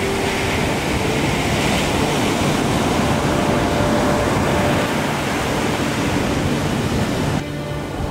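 Ocean surf: waves breaking and foam rushing in a steady wash of noise that drops suddenly in level near the end.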